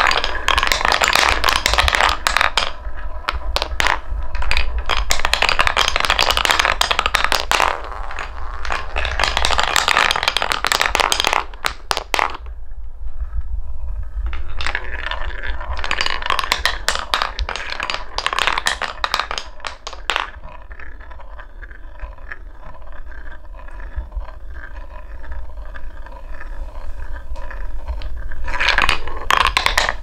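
Wooden balls rolling and clattering around a wooden funnel bowl, knocking into each other and dropping through the centre hole of a wooden marble run. The rolling comes in swells of dense clicking, goes quieter in the second half as fewer balls circle, and swells again near the end.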